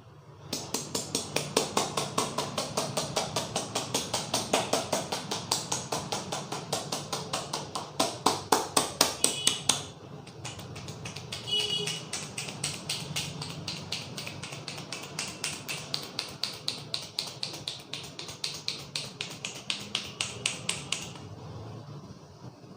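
A massaging barber's hands tapping on a person's head in a fast, even rhythm of about five strikes a second. The strikes are louder through the first half, then go on more softly and stop near the end.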